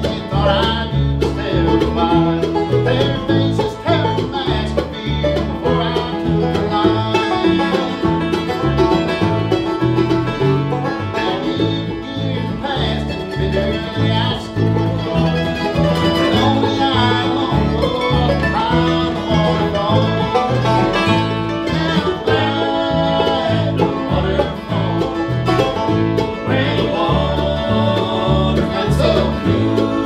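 Bluegrass band playing together: five-string banjo, mandolin, acoustic guitar and a resonator guitar played flat on the lap, over an upright bass plucking a steady beat.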